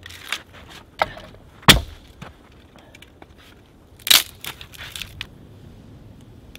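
A split piece of wood being snapped apart: several sharp cracks and crunches of splintering wood, the loudest about two and four seconds in.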